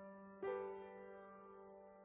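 Quiet background piano music: a soft chord struck about half a second in, left to ring and fade.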